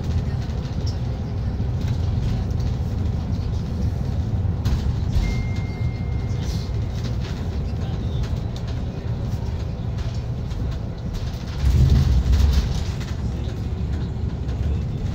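Steady low rumble of a moving vehicle, with a short high beep about five seconds in and a louder low thump near twelve seconds in.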